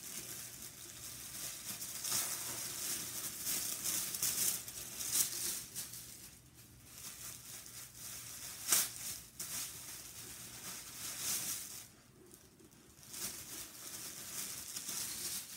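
Tissue paper rustling and crinkling as it is unwrapped by hand, in uneven spells with one sharper crackle about nine seconds in.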